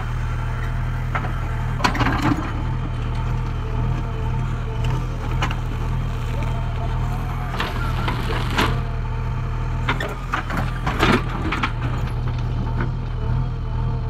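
JCB 3DX backhoe loader's diesel engine running steadily while the backhoe bucket digs and dumps rocky soil, with sharp clatters and crunches of stones against the steel bucket about two seconds in and several more in the second half.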